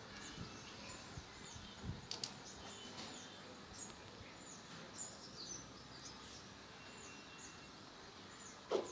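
Small birds chirping in the background, a steady run of short, high, falling chirps, over a quiet hiss. A few faint clicks and rustles come from fingers picking through hair for nits.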